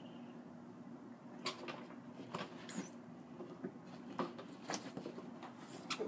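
A cat handling a freshly caught bird on a wooden porch and rug: irregular light clicks and scratches, starting about a second and a half in, over a faint steady hum.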